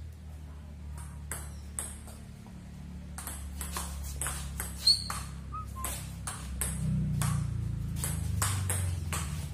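Table tennis rally: the celluloid-type plastic ball clicking off the paddles and bouncing on the table in a quick, even back-and-forth rhythm, the loudest hit about five seconds in.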